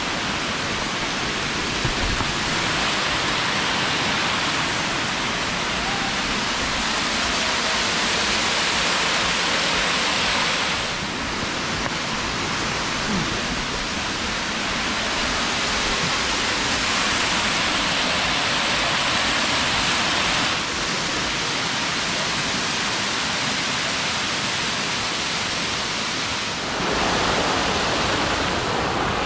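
Waterfall: a steady, loud rush of falling water that dips slightly three times.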